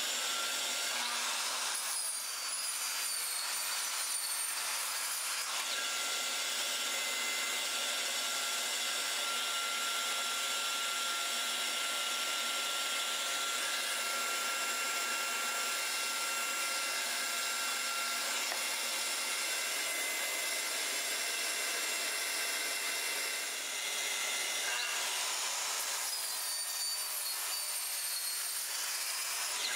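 Makita sliding compound miter saw cutting kerfs into a melamine insert, with its dust extractor running steadily throughout. A high motor whine shows near the start and again near the end.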